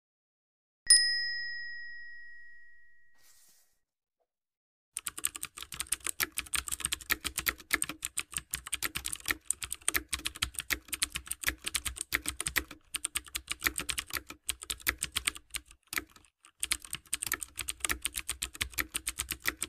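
A single bright chime about a second in, ringing out and fading over two seconds or so, as a bell-notification sound effect. Then, from about five seconds in, fast computer-keyboard typing clicks run on with two short breaks, a typing sound effect for text being typed out.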